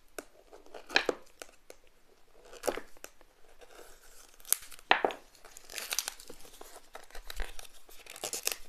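Plastic shrink-wrap on a small cardboard box being slit with a blade and then peeled off by hand: scattered scratches and tearing strokes, a few louder ones, then a run of crinkling in the second half.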